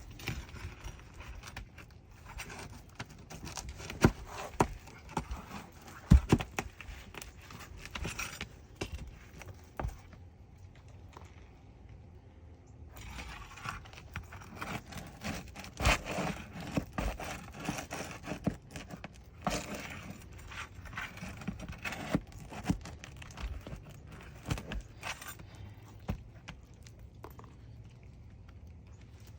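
Steel roofing pry bar scraping and knocking against asphalt shingles and roofing nails as the shingles are broken loose and the nails pried out: irregular sharp clicks and knocks with scraping between them. There is a short quieter pause about ten seconds in.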